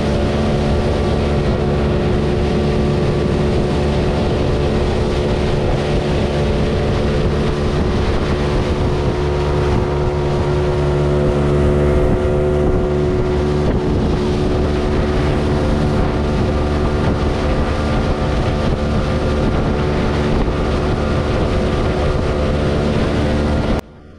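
Motor of a small open boat running steadily at speed, with wind buffeting the microphone. The sound cuts off suddenly near the end.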